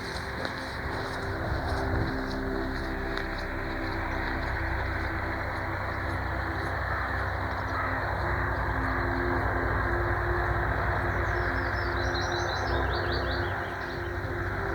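A steady low rumble with a constant hum. About eleven seconds in, a small bird sings a quick run of chirps that falls in pitch for two or three seconds.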